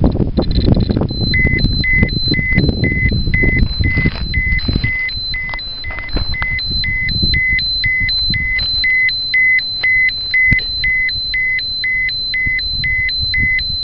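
Ecotest Terra-P (MKS-05) dosimeter beeping in a fast, steady series of short high-pitched beeps, about three a second: its alarm for a high dose rate, here a ground-level hot spot reading above 20 µSv/h. Rustling and knocks of the meter being handled and set down on a plastic bag fill the first few seconds.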